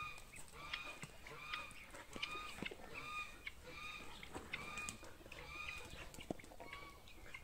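Helmeted guineafowl calling: one harsh, nasal two-note call repeated steadily about every three-quarters of a second, around ten times.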